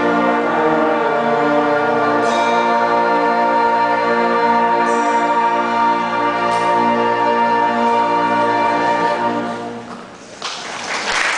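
Youth band with strings, woodwinds and brass playing slow, sustained chords up to a held final chord, which is released about ten seconds in. A burst of applause follows right after.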